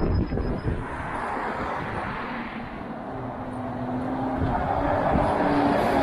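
City bus approaching and passing close on the road. A steady engine hum comes in about halfway, and the engine and tyre noise grows louder toward the end.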